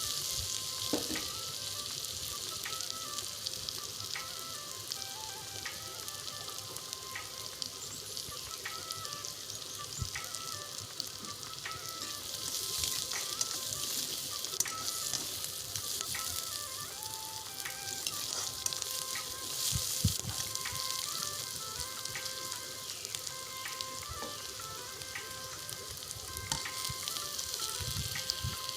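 Sliced onions, raisins and cashews sizzling as they fry in oil in a pan, stirred now and then, with a few soft knocks of the spatula against the pan.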